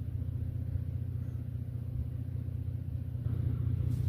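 Vehicle engine running steadily with a low, even rumble, swelling slightly near the end.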